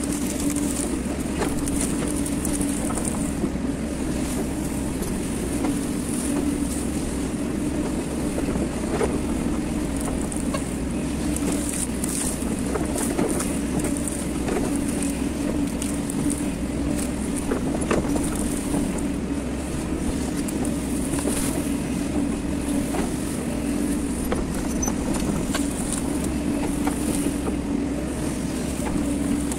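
Hydraulic excavator's diesel engine running steadily under working load, heard from the operator's cab, with a constant hum from the engine and hydraulics. Occasional short clicks and knocks come as the bucket scrapes brush and soil.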